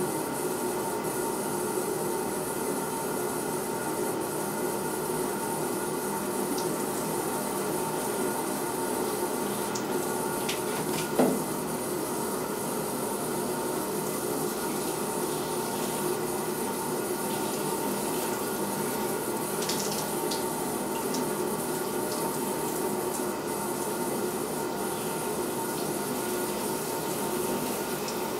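Shower spray running steadily onto a soaked fake-fur coat, with a single short knock about eleven seconds in.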